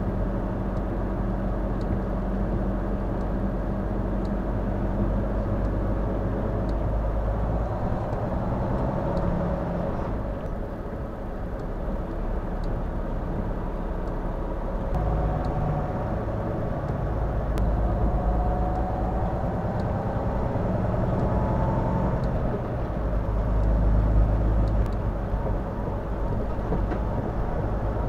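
Steady engine and tyre drone inside a truck cab on a wet highway, with a faint whine that rises in pitch twice in the middle.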